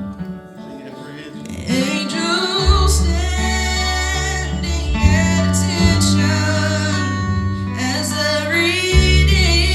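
A family group singing a gospel song with instrumental accompaniment. After a short lull near the start, the voices come back in, and a deep bass line joins a little under three seconds in.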